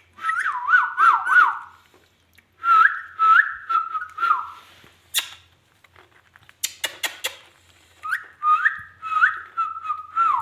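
Ringneck parakeet whistling a phrase of repeated rising notes three times over, with a few sharp clicks in the pause between.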